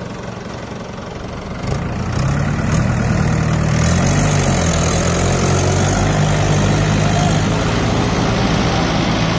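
Tractor engines running, going from a lower idle to a louder, steady working note about two seconds in as they pull under load to tow a tractor stuck in deep mud.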